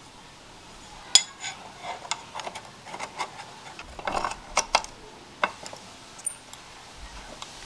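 Light metallic clinks and taps as a thin aluminium profile and a small metal block are handled against a cast-iron drill press vise, with a short scrape of metal on metal about four seconds in. The clicks come irregularly, the sharpest about a second in and about six seconds in.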